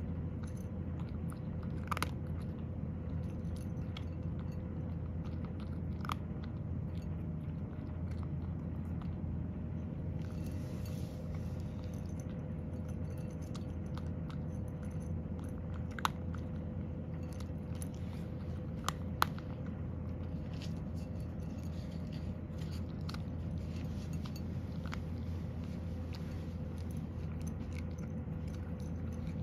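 A cat crunching and chewing dry kibble from a bowl, with scattered crisp crunches; the sharpest come about two, six, sixteen and nineteen seconds in. A steady low hum runs underneath.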